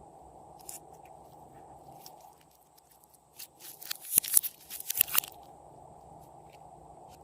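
Slime being squeezed and worked by hand, giving a run of sharp crackling and popping clicks for about two seconds midway, with a few faint clicks before and after.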